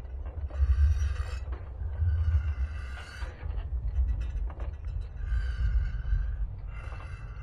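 Ambient soundtrack: a steady deep rumble under four airy, high tonal swells that each rise and fade within about a second.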